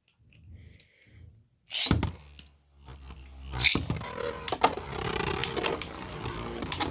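Beyblades ripped off their launchers about two seconds in, then spinning and scraping against each other and the plastic stadium with a steady grinding rattle and frequent sharp clicks of collisions, among them a 3D-printed Supercharged V8.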